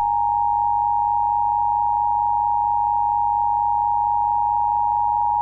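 Emergency Alert System attention signal: a steady, unbroken two-tone electronic alert tone.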